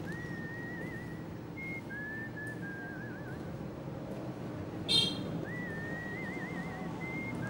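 A slow melody whistled in a thin, wavering tone, with held notes that glide and trill, over a low background murmur. A sharp, high clink about five seconds in.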